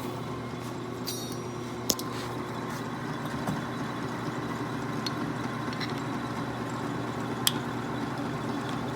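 Machine tool running steadily with a constant motor hum, with a few light clicks and a brief high rattle about a second in.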